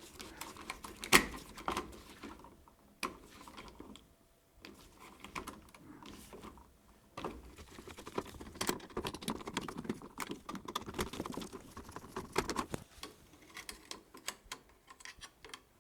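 Phillips screwdriver working the terminal screws of a wall dimmer switch: scattered small metallic clicks and scrapes, with a quieter stretch about three to seven seconds in.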